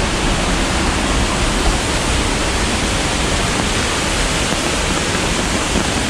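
Steady, loud rush of Kegon Falls, a large waterfall plunging into its basin.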